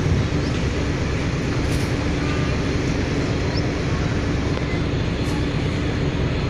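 Steady low rumble of a ship's diesel engine running, with a constant hum and no change in speed.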